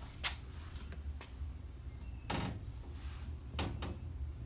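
Three short, sharp clicks and knocks a second or so apart, of hands working at a GFCI outlet, over a steady low hum.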